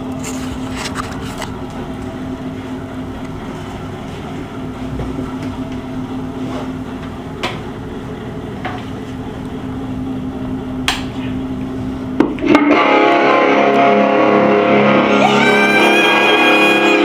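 A steady hum with a few sharp clicks, then about twelve and a half seconds in, loud guitar music starts abruptly.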